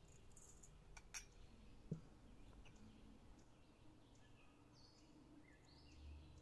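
Near silence with faint outdoor background: a couple of soft clicks about a second in, a brief low thump about two seconds in, and faint high chirps later on.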